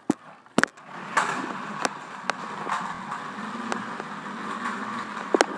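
Toy remote-control stunt car running with a steady motor-and-wheel noise, broken by sharp plastic clicks and knocks. Two loud knocks come in the first second, and a quick double knock near the end.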